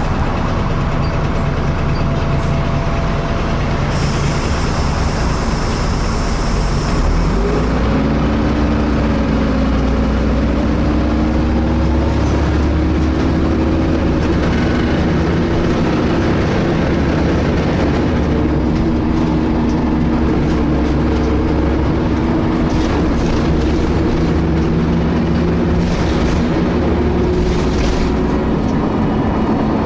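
Alexander ALX300-bodied DAF single-decker bus heard from inside while under way: engine and road noise with a steady whine that rises in pitch about eight seconds in and then holds. The whine is the bus's strange noise, which sounds like a whining cooling fan, its cause unknown.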